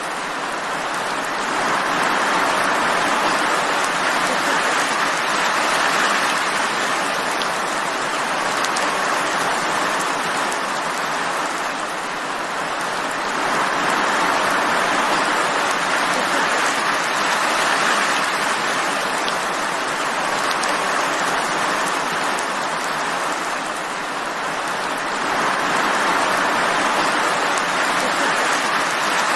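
Steady rainfall, a dense even hiss that swells and eases about every twelve seconds.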